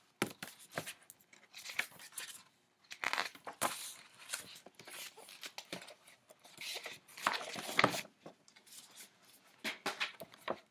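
A hardcover picture book being handled and opened: paper pages rustling, with light knocks, in irregular bursts.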